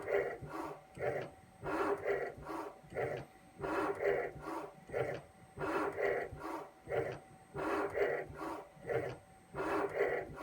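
Small CNC mill's cutter machining a thin copper-and-plastic flat flex cable, rasping in a regular repeating pattern of about three strokes every two seconds over a faint low steady hum.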